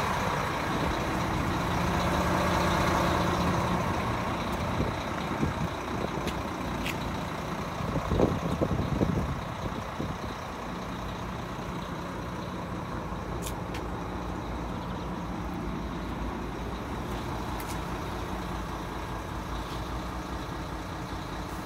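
Volvo FM 330 truck's diesel engine idling with a steady low hum, with a short louder rumble of noise about eight seconds in.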